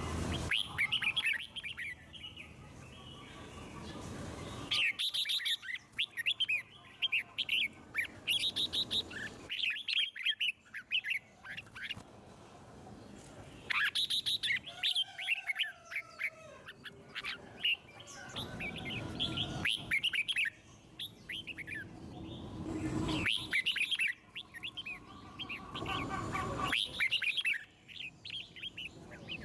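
Red-whiskered bulbuls singing: bursts of quick, chirpy whistled phrases, repeated every few seconds with short pauses between.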